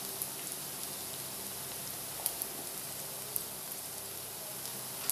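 Chopped onion and garlic sizzling steadily in hot oil in a nonstick kadai, with a few sharp clicks.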